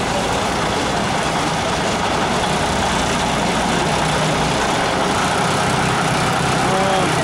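Vintage diesel bus engine running at low speed as the bus creeps closer, growing slightly louder.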